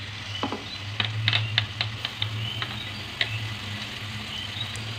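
Plastic spatula tapping and scraping blended spice paste out of a blender jug into a wok of oil: a run of light clicks and knocks that thins out after about three seconds. Under it are a faint sizzle from oil that is not yet fully hot and a steady low hum.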